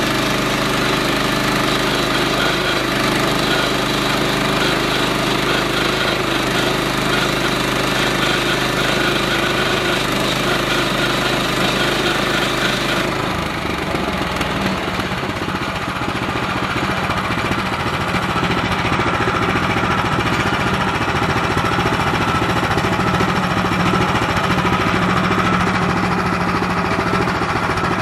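Gasoline engine of a small Central Machinery band sawmill running steadily under power. About halfway through the sound changes abruptly to a rougher, rattling drone that continues.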